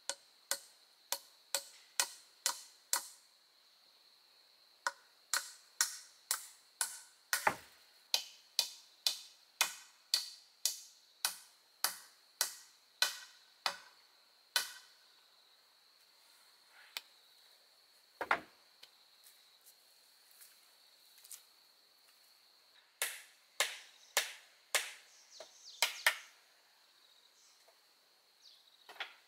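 Repeated sharp strikes of a hand tool, about two a second, in runs broken by pauses, over a steady high-pitched insect drone.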